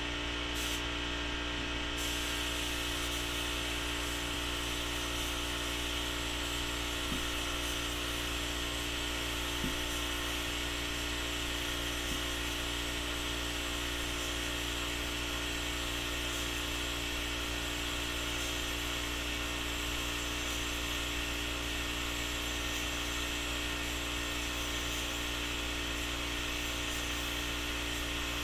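Husky HVLP gravity-feed spray gun with a 1.4 mm tip spraying primer: a steady air hiss that brightens about two seconds in, over a constant hum of the compressed-air supply with several steady pitches.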